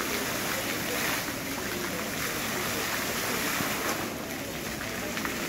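Ornamental fountain's water jets splashing into its pool: a steady rushing of water.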